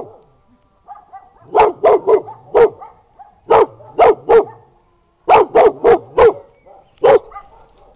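Black-and-tan shepherd-type mixed-breed dog barking hard at a gate, in quick bursts of three to five barks with short pauses between, and a single bark near the end.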